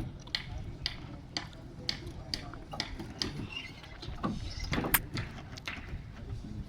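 Hand tools striking and scraping on a building site: irregular light knocks and clicks, about one or two a second, with a louder knock about five seconds in.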